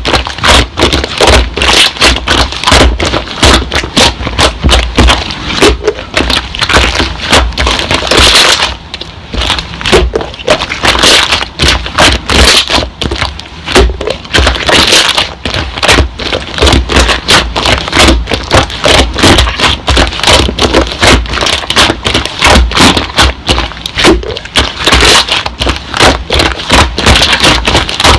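Slime being squished and pressed by hand: a dense, fast, irregular run of crackling pops and clicks, with a short lull about eight seconds in.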